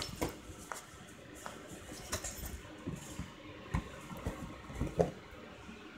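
Irregular soft knocks, clicks and rustles of a blood pressure monitor's cardboard box, cuff and packaging being handled and unpacked.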